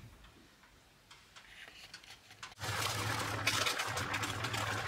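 A pot of rice and water boiling under perforated aluminium foil: a near-quiet start with a few faint ticks, then about halfway in a steady bubbling noise with a low hum beneath it begins abruptly.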